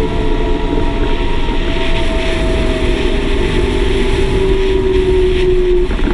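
Claas Axion 850 tractor's six-cylinder diesel running steadily under way on a continuously variable (Vario) transmission, a whining tone in its sound slowly dropping in pitch as the revs ease.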